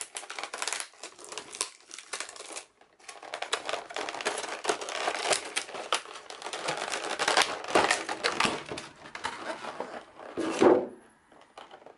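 Clear plastic blister tray crinkling and crackling as hands pry and pull the packaging apart, with a brief pause about three seconds in and a louder crack near the end.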